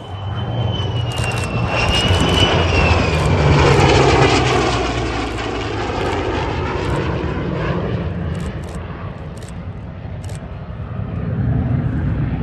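An F-35A fighter jet passes overhead in formation with a P-38 Lightning and a single-engine propeller warbird. A high jet whine drops in pitch over the low drone of the piston engines, and a rush of noise swells to its loudest about four seconds in, then fades.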